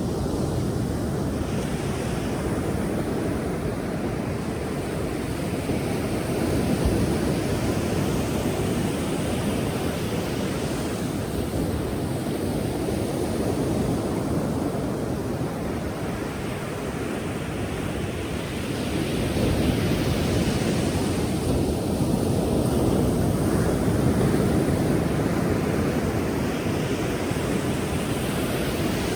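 Powerful ocean waves breaking as continuous surf, a steady rushing wash that swells louder about seven seconds in and again for several seconds past the middle.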